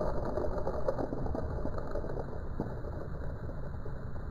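Thunder rolling on: a steady low rumble with a dense crackle through it, slowly easing.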